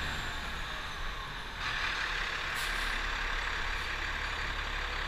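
Fire truck driving through town: steady engine and road noise with wind rushing over the outside-mounted microphone, growing a little louder about one and a half seconds in, and a brief hiss near the middle.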